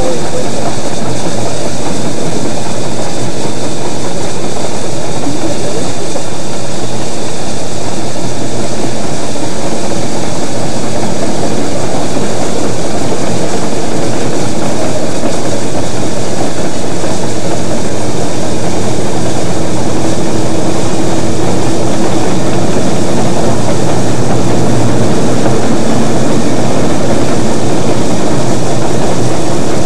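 Narrow gauge steam train running, a loud, steady mix of locomotive and wheel-on-rail noise.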